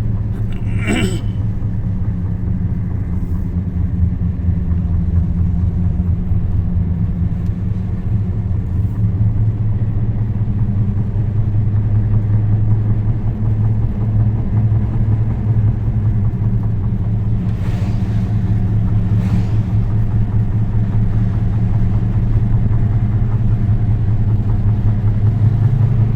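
Steady low drone of a motor vehicle running, a constant hum with no clear rise or fall.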